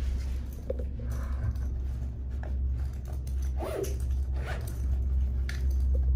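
Open chairlift running: a steady low rumble with scattered short squeaks and scrapes from the moving cable and its mechanism.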